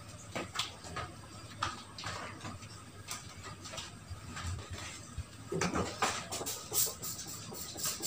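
Scattered light knocks, taps and rubbing from household cleaning around a glass-top table and its chairs, busier in the last few seconds as the cloth and spray bottle are handled.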